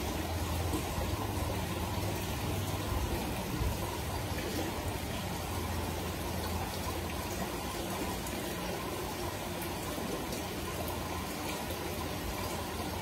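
Steady running and bubbling water of an aquarium.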